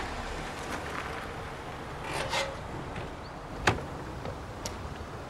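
A car pulling up, with a short scraping rasp about two seconds in, then a sharp click, the loudest sound, as the driver's door of the Volkswagen Passat is unlatched and swung open, followed by a few fainter knocks.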